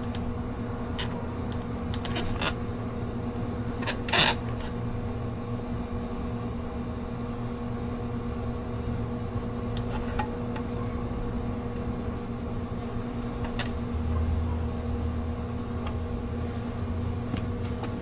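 A steady mechanical hum with a few scattered light clicks and a short knock about four seconds in.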